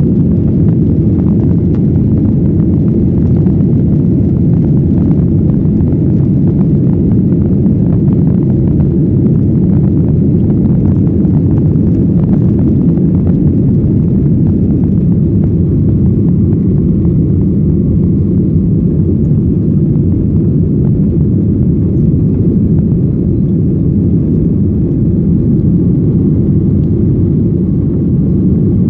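Jet airliner engines at climb power, heard from inside the passenger cabin: a loud, steady low rumble.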